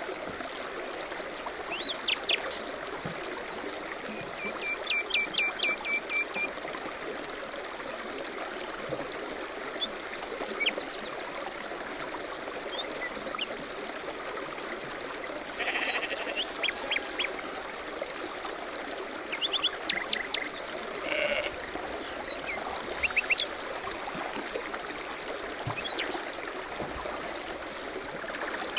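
Mixed nature-sound ambience from a web app: a steady trickling stream with scattered bird chirps and short trills over it.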